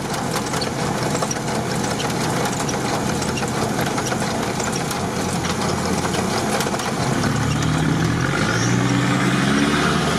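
Off-road vehicle's engine running under way through standing water in heavy rain, heard from inside the cab, with the rain ticking on the body and glass. About seven seconds in, the engine note climbs in steps as the vehicle accelerates.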